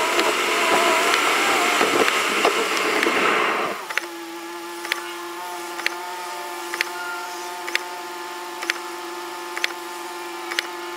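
Car driving on a wet road with loud tyre and road noise, then coming to a stop about four seconds in. While it waits, the engine idles with a steady hum and the turn-signal indicator ticks about once a second.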